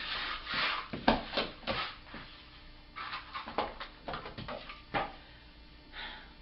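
A cream pie pressed and twisted into a person's face: a run of short, irregular wet squishing noises over the first five seconds, fewer near the end.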